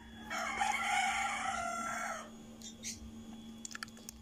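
A rooster crowing once, a call of about two seconds, over a steady low hum. A few light clicks follow near the end.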